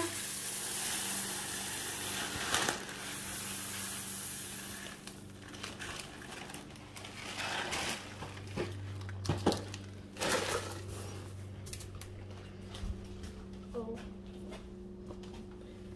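Rice Krispies cereal poured into a container, a dry rustling pour for about five seconds, then scattered light knocks and rustles as the bag and container are handled.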